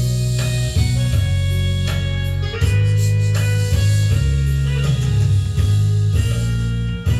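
Instrumental break of a Korean trot song: a guitar carries the melody over a steady bass line and drums.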